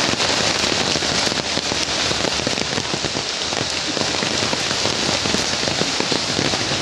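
Heavy rain falling steadily: a dense, even hiss with many close drop hits.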